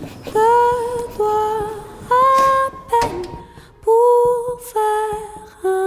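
A woman's voice singing a slow melody of long held notes, one after another with short breaks between them.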